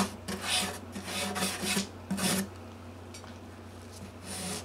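Quick back-and-forth rubbing strokes on a guitar's bridge as fretboard oil is worked in and wiped off, about two strokes a second. The strokes stop about two and a half seconds in, and one more comes near the end.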